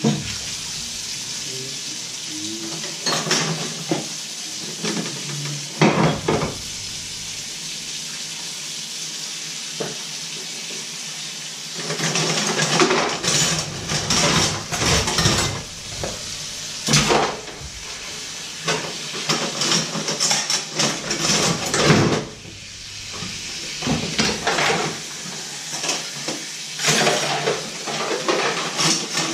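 Washing up at a stainless steel sink: a tap running steadily, with bouts of dishes, a wooden cutting board and cutlery clattering and knocking against the steel.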